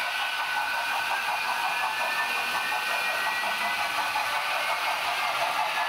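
Sound decoder of an H0 model Mikado steam locomotive playing its steam running sound through the model's small speaker: a steady hiss with a faint regular chuffing and a thin high tone, with no bass.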